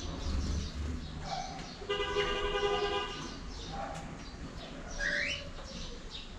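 Cockatiels chirping repeatedly in short high notes. About two seconds in, a steady honk-like tone lasts about a second. A short rising whistle comes about five seconds in.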